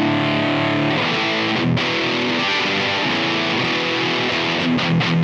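Gibson Les Paul electric guitar played through a Simplifier MK2 amp-simulator pedal on a driven, high-gain setting. A held chord rings for about a second, then single notes and chords follow, and near the end it turns into a rhythmic chugging riff of about three to four strokes a second.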